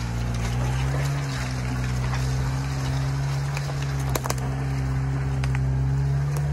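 1993 Subaru Sambar kei truck's 660 cc four-cylinder engine running at steady low revs as the truck drives slowly over a dirt forest trail, the engine note rising a little about a second in and then holding. A couple of sharp clicks about four seconds in.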